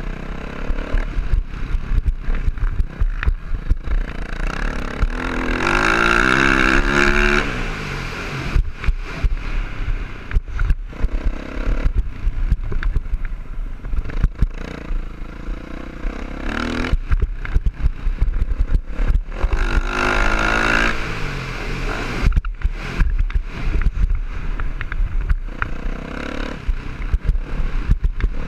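Motocross dirt bike engine revving up and down as it is ridden hard, heard from the rider's helmet. Its pitch climbs and falls with throttle and shifts, loudest about six seconds in and again about twenty seconds in, under constant wind buffeting and knocks from the ruts.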